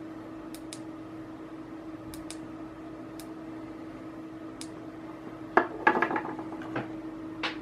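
Push button on a small plastic bicycle tail light clicking several times, often in quick pairs, as the light is switched through its modes and off, over a steady low hum. About five and a half seconds in, the plastic light clatters down onto a wooden table, with one more click near the end.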